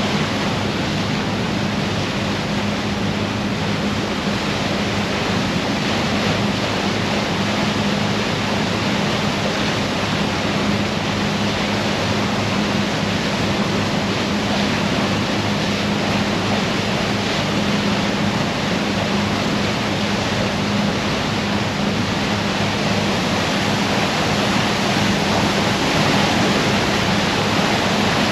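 A sightseeing icebreaker ship underway on open sea: a steady rush of wind and water along the hull, with a constant low engine hum underneath.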